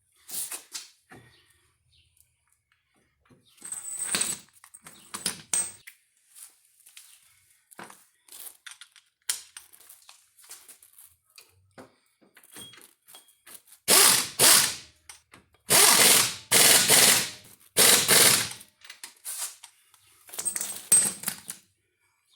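Metal tools and parts clinking during front brake reassembly, then a power tool running in about six short bursts under a second each, with two more near the end, as bolts are run in and tightened.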